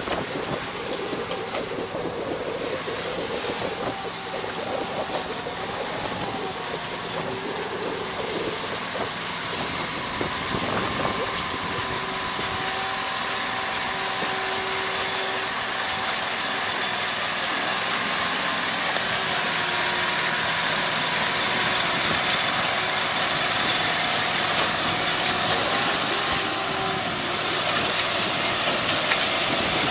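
Aquamarine H5-200 weed harvester running on the water, its side paddle wheels churning and splashing over the steady engine with a whine. It grows louder as it comes close.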